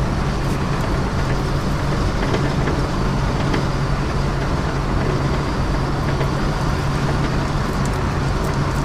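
Steady in-cabin drive noise of a car on the move: a constant low engine drone under an even rush of tyre and road noise.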